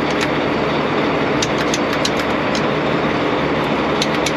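Diesel engine running steadily at idle, with light irregular clicks on top.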